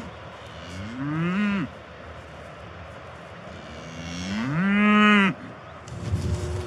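A cow mooing twice. The first moo is short, about a second in; the second is longer and louder. Each rises in pitch at the start and drops off at the end.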